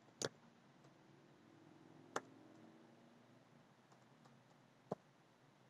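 Three separate computer keyboard keystrokes, sharp single clicks a couple of seconds apart, over near silence.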